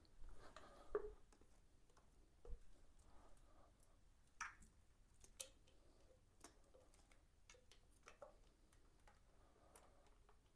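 Near silence with scattered faint clicks and taps: hands fitting the valve cover cap back onto a motorcycle engine and handling the parts and wiring around it.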